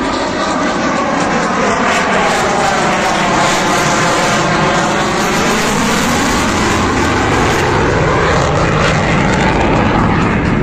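Military jet aircraft flying past with a loud, steady engine roar. The roar has a sweeping, phasing sound that falls in pitch toward the middle and then rises again as the jet passes.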